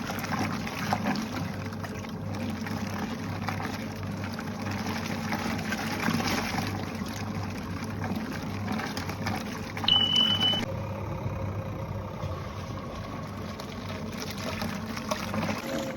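Small top-loading washing machine running, its motor humming under water churning in the tub, with a short high beep about ten seconds in.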